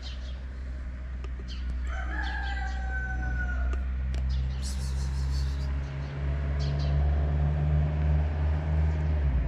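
A rooster crows once, one drawn-out call about two seconds in. Under it runs a steady low hum that grows louder and then cuts off suddenly near the end.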